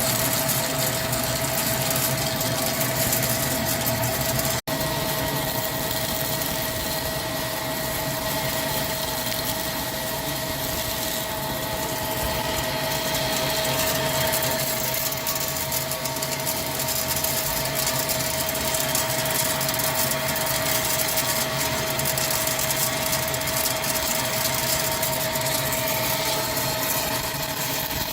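CNC lathe running steadily while turning a spur pinion shaft: a constant whine over a steady mechanical hiss, with a split-second break about four and a half seconds in.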